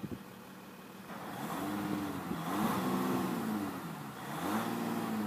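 3.0-litre V6 EcoDiesel engine of a 2014 Jeep Grand Cherokee, heard with the hood open, being revved from about a second in. Its pitch climbs and falls back about three times.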